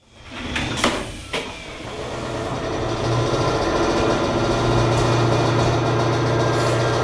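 Inside a former Ginza Line electric railcar: a few sharp clicks and knocks in the first second and a half, then a steady low hum from the car's electrical equipment that builds up and holds.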